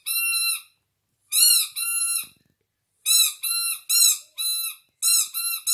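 Squeaky Peppa Pig toy figures squeezed by hand, giving short high squeaks in quick runs: one, then two, then four, then another run near the end.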